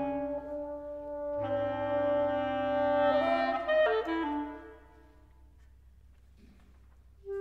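Clarinet, bass clarinet and bassoon trio holding sustained chords. The chord shifts about three to four seconds in, then the sound dies away to a near-silent pause, and a new held note comes in loudly at the very end.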